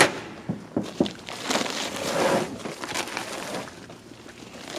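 Heavy bags of frozen coal being thrown down and stacked: a few sharp thuds, rustling and scraping of the bags, then another hard thud at the end.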